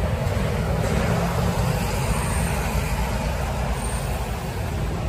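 Steady city-street traffic noise: a low, continuous drone of road vehicles.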